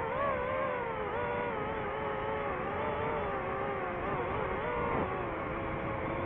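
DJI FPV drone's motors and propellers whining steadily, the pitch sliding up and down as the throttle changes.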